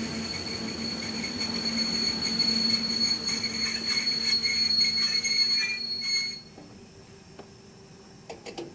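A train running on rails with a steady high squeal from its wheels. The sound cuts off abruptly about six seconds in, and a few faint clicks follow near the end.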